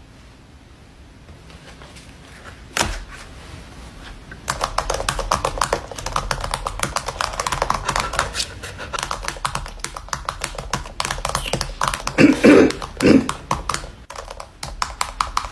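Rapid typing on a computer keyboard: a single click, then from about four seconds in a dense run of quick key clicks, with a few louder thumps near the end.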